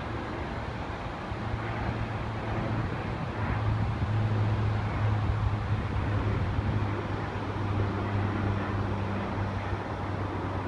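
Departing airliner climbing overhead after takeoff: a steady engine roar with a low hum underneath. It grows louder about four seconds in, then eases off slightly.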